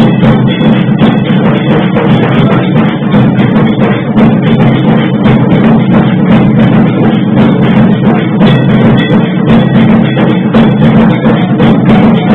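Loud music with continuous, dense drumming.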